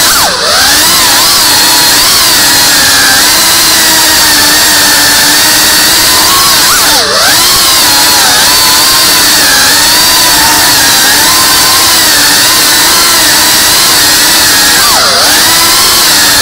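FPV drone's electric motors and propellers whining steadily at high pitch, heard from on board. The whine drops sharply and swings back up three times, as the throttle is cut and reapplied.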